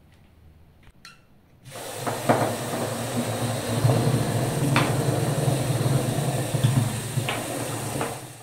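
Small electric toy motors (LEGO Power Functions type) switched on suddenly almost two seconds in. They run with a steady low hum and whirring gear noise as they drive wheeled test cars, with a few sharp clicks along the way, and die away at the very end.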